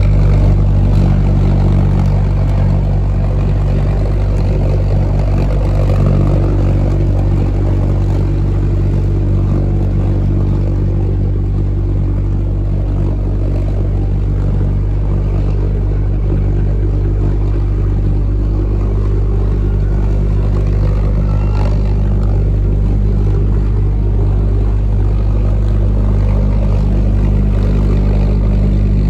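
JB-2 Loon's pulse jet engine, a copy of the German V-1's, running on 100LL gasoline and giving its steady, low, loud buzz at an unchanging pitch.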